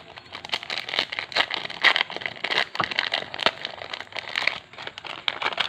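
Yu-Gi-Oh booster pack's foil wrapper crinkling as it is handled and opened, a dense run of crackles.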